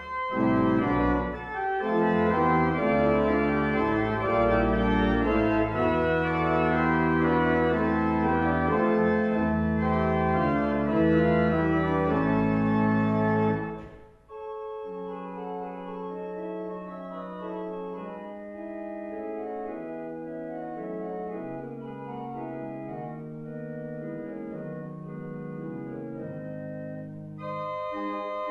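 Lewis pipe organ playing a piece loudly with full stops and deep pedal bass notes. About halfway through it breaks off briefly and goes on more quietly without the pedal bass, then grows louder again near the end.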